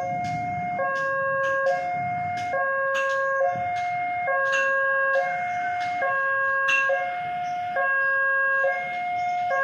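Railway level-crossing warning alarm sounding in a steady two-note cycle, a higher and a lower electronic tone alternating about once a second. It signals that the barriers are down and a train is approaching.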